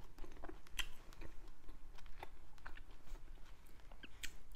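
Close-miked chewing of a mouthful of soft cooked fish roe, with many small wet mouth clicks and smacks. Near the end she takes another bite from chopsticks, with a sharper click.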